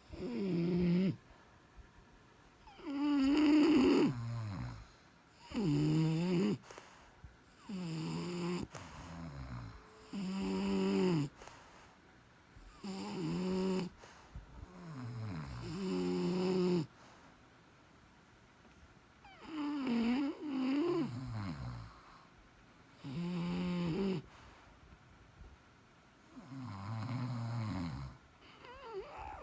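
Sleeping French bulldog snoring: a run of about ten pitched, wavering snores, each a second or so long, coming every two to three seconds.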